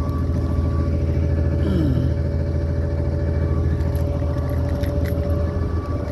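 A large engine running steadily at idle, with a short falling tone about two seconds in and a couple of sharp clicks later on.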